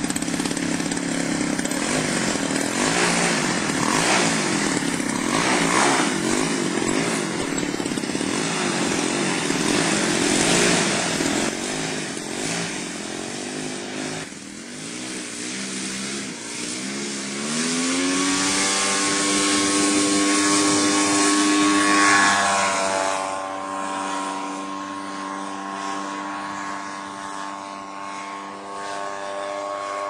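Engine of a large radio-controlled L-19 Bird Dog scale model airplane. It runs with a wavering, uneven pitch for the first half, rises in pitch a little past halfway as it is throttled up for the takeoff run, then holds a steady, higher drone as the model flies.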